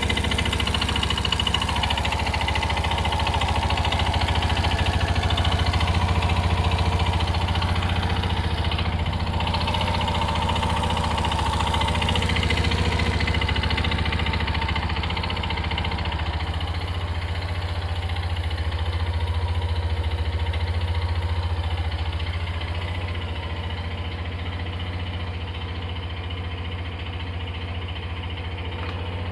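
Suzuki Address V125G scooter's single-cylinder four-stroke engine running steadily with a knocking rattle, a noise that has grown steadily worse; with iron filings found in the drained oil, the owner wonders whether the crankshaft bearing has failed.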